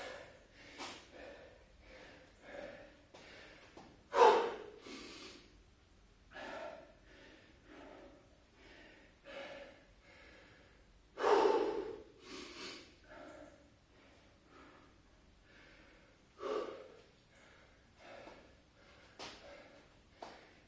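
A man breathing hard from exertion during a set of push-ups: short, noisy breaths every second or so. Two much louder gasping breaths come about four seconds in and about eleven seconds in.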